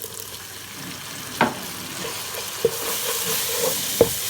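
Onion, tomato and spice base sizzling in a pan as stock made from dissolved stock cubes is poured in and stirred; the sizzle grows louder about halfway through. Three sharp knocks of a utensil against the pan.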